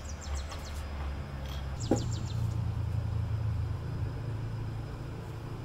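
A steady low hum, with two short rapid runs of high ticks or chirps, one at the start and one about two seconds in.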